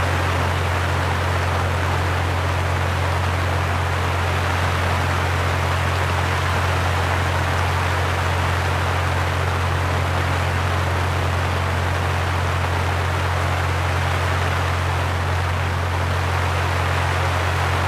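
Steady low electrical hum beneath an even hiss.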